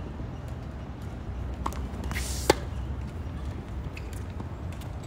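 Tennis ball struck with a racket: one sharp crack about halfway through, just after a short hiss, with a fainter knock a moment before, over a low steady rumble.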